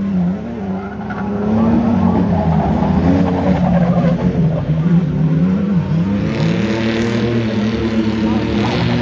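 Speedway race car engine on a dirt oval, its revs rising and falling again and again as the driver lifts off and gets back on the throttle through the turns.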